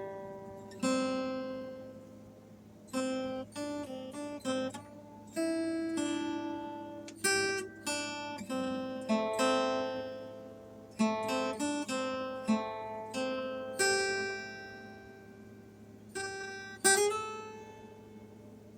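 Background music: a solo acoustic guitar picking single notes and chords, each ringing out and fading.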